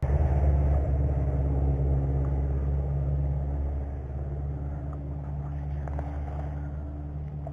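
An engine running steadily with a low hum, starting abruptly and slowly fading.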